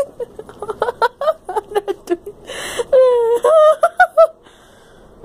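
Puppy whining and yipping in play: short high calls that bend up and down, then a longer whine about three seconds in followed by a quick run of rising yips. A short breathy huff comes about halfway through.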